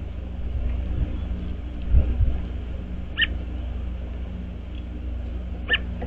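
Outdoor feeder-cam ambience: a steady low rumble of wind and distant hum, with a couple of low thumps about two seconds in. Two short, high yelping calls come about two and a half seconds apart.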